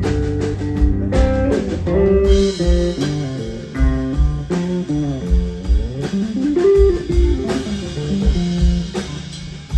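Live blues band playing amplified: electric guitar with notes sliding up and down over bass guitar and a steady drum kit beat.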